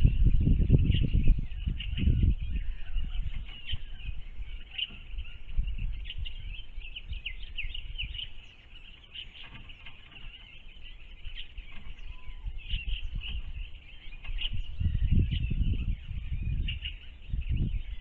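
Small birds chirping and calling over and over throughout. A low rumbling noise is loud during the first two seconds and returns about three seconds from the end.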